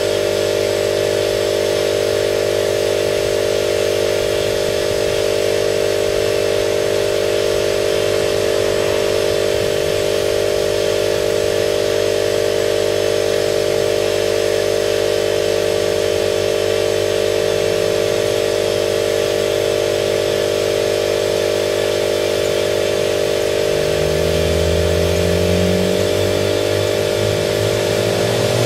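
A motor runs steadily with a strong, even hum. Near the end an engine revs up, its pitch rising in steps.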